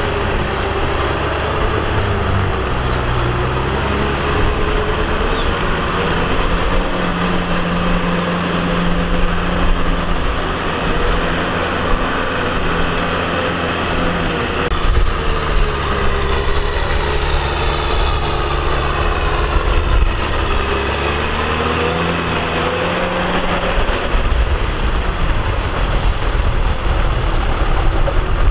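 Kubota M6040 tractor's diesel engine running steadily while working a paddy field, its pitch wavering slightly up and down.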